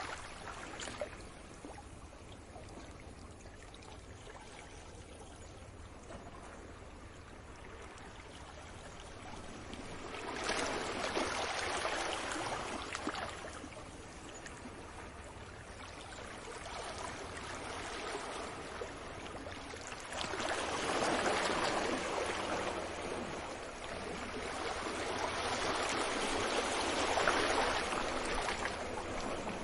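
Waves breaking and washing up a beach, the surf swelling and ebbing about twice.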